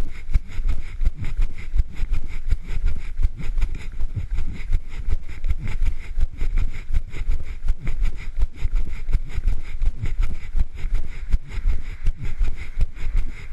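Wind buffeting a camera microphone carried on a run, with a regular thudding of footfalls and the camera jolting at each stride.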